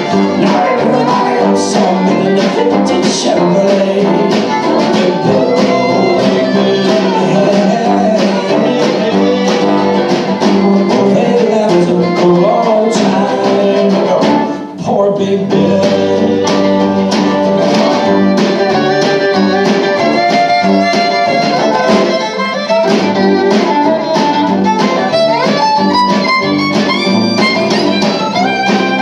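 Live acoustic string band playing an upbeat tune, with fiddle, acoustic guitar and mandolin over snare drum and tuba, and a brief break about halfway through.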